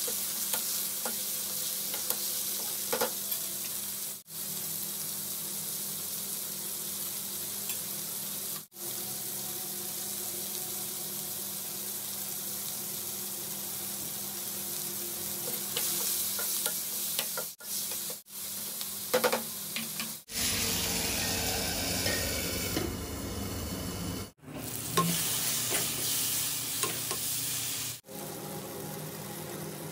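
Chopped tomatoes and onions sizzling in oil in a kadai while a steel ladle stirs them, scraping and knocking against the pan now and then. The sound breaks off briefly several times.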